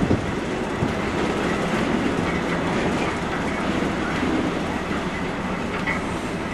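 SM42 diesel-electric shunting locomotive running at idle while a depot turntable slowly turns it: a steady low rumble.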